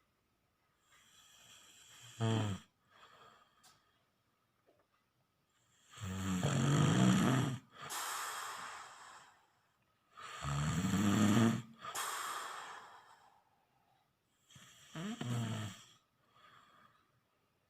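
Snoring: four snoring breaths, a short one about two seconds in, two long loud ones around the middle about four seconds apart, each followed by a breathy exhale, and a weaker one near the end.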